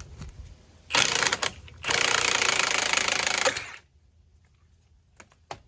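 Impact wrench hammering in two bursts while taking off a car's front coil spring: a short burst about a second in, then a steady run of nearly two seconds that stops abruptly.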